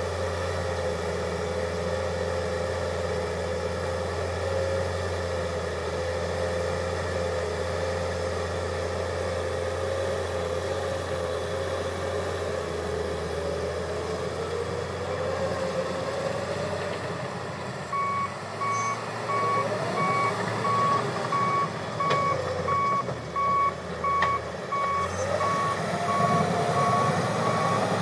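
John Deere 700H bulldozer's diesel engine running with a steady whine; about two-thirds of the way in, a reverse alarm starts beeping in a steady on-off rhythm as the machine backs up, with the engine rising in pitch now and then.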